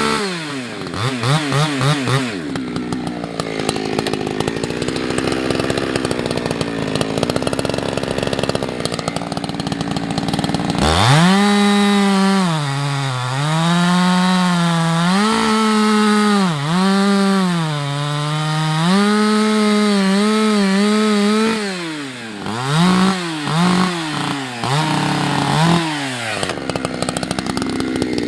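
Husqvarna 365 X-Torq two-stroke chainsaw cutting beech: the engine revs up, runs under load in the wood, then rises and falls in pitch with throttle and load. Near the end it gives a few short throttle blips.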